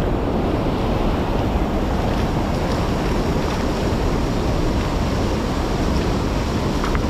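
Steady, loud rushing noise with no clear pitch or rhythm, like surf or wind buffeting the microphone.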